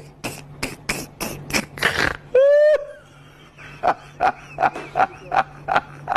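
Beat of an edited-in soundtrack: sharp percussive hits about three a second, broken about two and a half seconds in by one short, loud held note, then the hits resume over a low steady hum.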